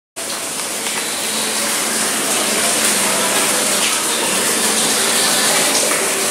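Steady rushing, gushing water, starting abruptly right at the start.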